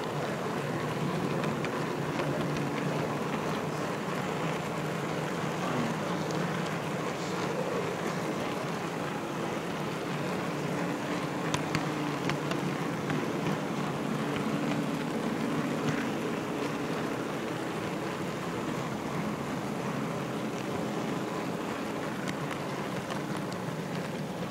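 Steady rolling rumble of an HO-scale model train car running along the rails, picked up by a microphone riding on the car itself, with a few light clicks in the middle.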